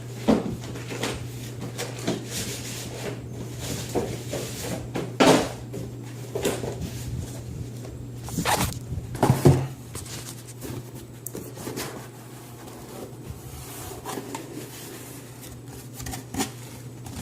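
Cardboard box and packaging being handled and pulled open by hand, with irregular scraping, rustling and a few knocks; the loudest come about five seconds in and again around nine seconds. A steady low hum runs underneath.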